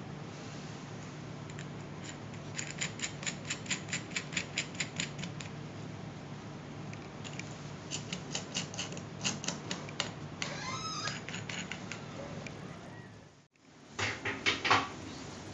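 Runs of light, evenly spaced clicks, about five a second, from a clear acrylic bone-clamping fixture with steel bolts being handled and adjusted by gloved hands, over a steady low hum. Near the end comes a brief, louder clatter.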